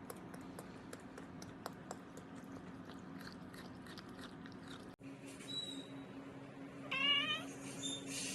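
Cat crunching food in quick irregular clicks, then a short wavering meow near the end.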